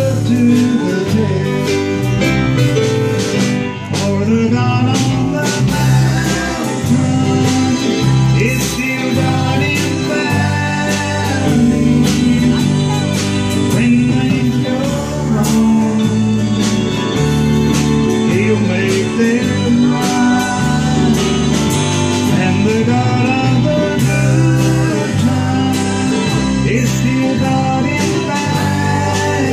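Live amplified band playing a country gospel song, with electric and acoustic guitars, keyboard and a sung lead vocal.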